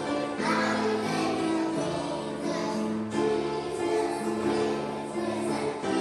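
A group of young children singing a song together over musical accompaniment, the notes held and changing every half second or so.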